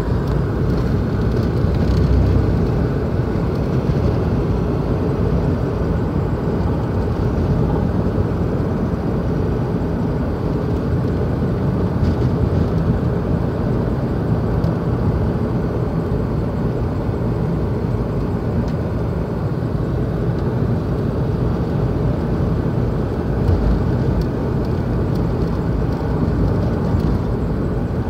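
Steady road noise inside a moving car's cabin: low tyre rumble and engine hum at a constant cruising speed.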